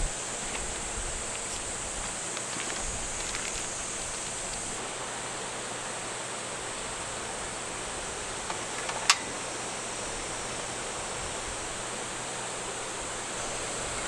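Valley stream water rushing steadily, an even hiss of flowing water. A single sharp click about nine seconds in.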